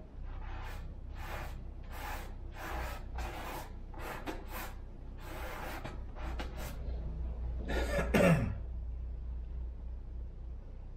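Paintbrush strokes on canvas: a series of short scratchy rubbing strokes, about one every half second, then a louder, longer stroke about eight seconds in.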